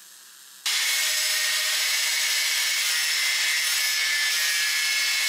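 Angle grinder running against steel, a steady, even noise with a faint constant whine that starts abruptly about half a second in.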